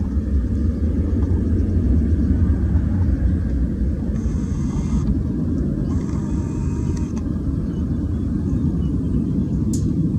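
Twin-engine jet airliner's engines making a steady low rumble as it climbs away just after takeoff.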